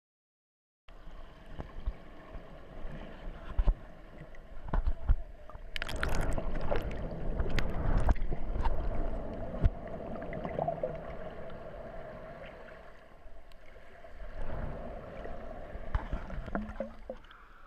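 Water rushing and sloshing around a waterproof action camera riding down an enclosed water slide, with scattered sharp knocks and bumps against the camera. It starts about a second in and is loudest in the middle.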